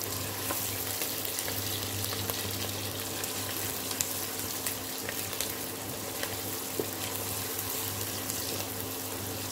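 Diced onions sizzling in hot vegetable oil in a stainless steel pot, with small crackles and a wooden spoon stirring through them. A steady low hum runs underneath.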